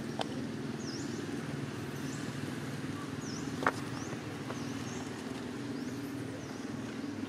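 A steady low mechanical hum runs throughout, with short high chirps repeating every second or so over it and a single sharp click a little past the middle.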